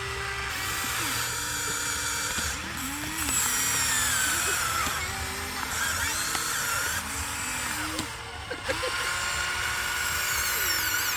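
Small electric motors whining, their pitch gliding up and down and shifting every second or two.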